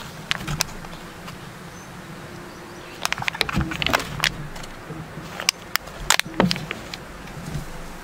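Crinkling and clicking of a thin aluminium foil pan and a gloved hand handling it, in two quick clusters of sharp crackles midway and shortly after, over a steady low hum.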